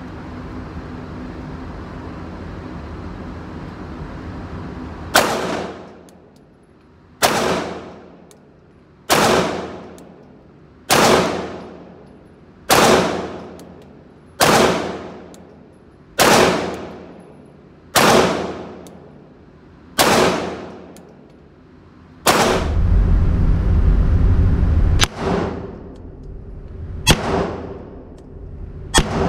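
Ten shots from a Canik TP9SFX 9mm pistol, fired about one every two seconds, each ringing out with a long echoing decay in the indoor range, after a few seconds of steady ventilation hum. Near the end comes a few seconds of loud low rumble, then a few fainter sharp cracks.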